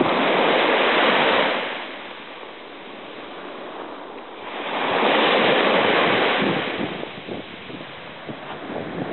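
Small waves washing up a sandy beach: two surges of wash, each lasting about two seconds and about five seconds apart, with quieter backwash between.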